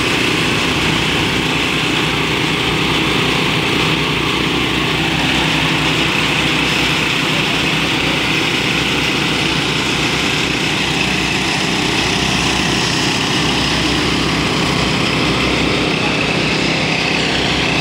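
Small petrol engine running steadily at an even speed, driving a rice threshing machine.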